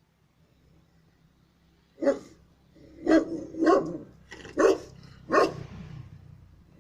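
Large Greek shepherd dog barking five times, deep single barks starting about two seconds in, with a low rumble between the middle barks.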